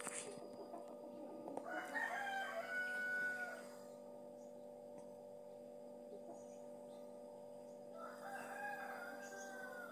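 A rooster crowing twice, each crow lasting about two seconds; the second comes near the end. A steady low hum runs underneath.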